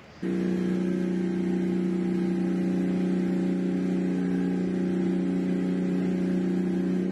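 Combustion engine fitted with the Thunderstorm plasmoid generator, running at a steady speed. It starts abruptly just after the beginning and holds one unchanging pitch.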